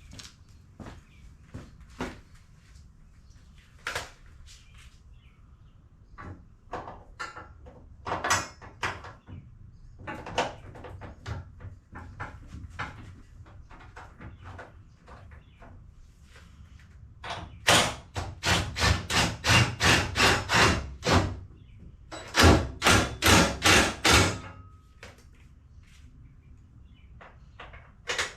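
Metal tools and car parts clanking, then two runs of sharp, ringing metal strikes, about three a second, each lasting a few seconds, as the suspension parts are worked into place.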